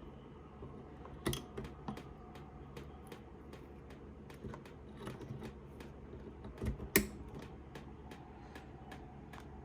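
Scattered light clicks and taps from hands at work, irregular and unhurried, with a louder knock about seven seconds in.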